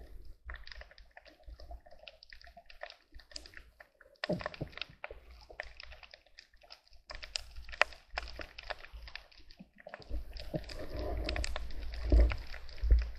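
Underwater sound picked up by a camera on a reef at night: scattered sharp clicks and crackles throughout. Near the end comes a louder stretch of low rumbling, with two heavier thuds.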